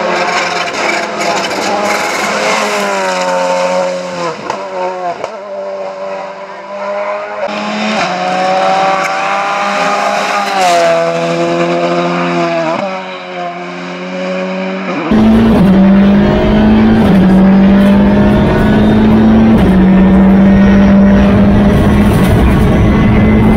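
Volkswagen Polo GTI R5 rally car's turbocharged four-cylinder engine at full throttle, its pitch climbing and dropping back at each gear change. About 15 s in the sound cuts to a louder, steadier engine note with heavy road rumble, heard from inside the car.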